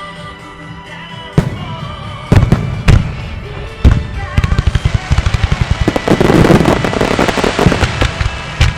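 A music starmine fireworks display: aerial shells go off with heavy booms, then a rapid volley of bangs, then a dense crackling, over music played through loudspeakers.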